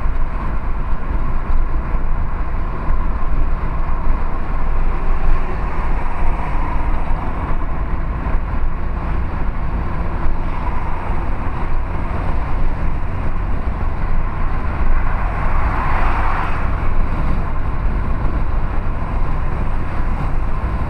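Steady road and engine noise of a car driving at highway speed, heard from inside the cabin through a dashcam's built-in microphone: a constant low rumble that swells briefly about three-quarters of the way through.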